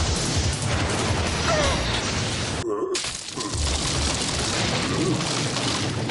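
Cartoon fight sound effects: a heavy crash of shattering rock that runs on as a dense, rumbling wash of debris and dust, broken by a short drop-out about halfway through.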